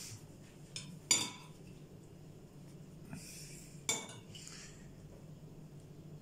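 Metal spoon clinking and scraping against a ceramic plate as cooked liver is scooped into a bread roll: two sharp, ringing clinks, about a second in and near four seconds in, with a few fainter taps between.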